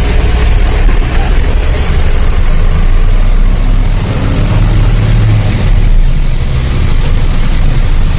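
Truck engine running steadily with a deep, even hum.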